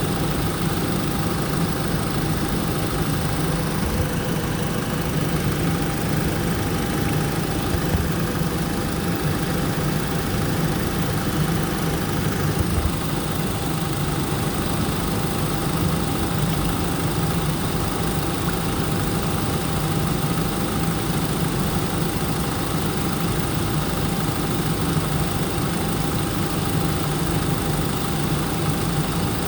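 Car engine idling steadily while the cooling system is burped of trapped air after a coolant flush.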